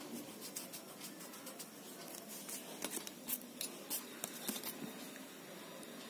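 Pencil drawing on paper and a steel ruler being handled: soft scratching with a scatter of sharp clicks and taps, most of them bunched in the middle.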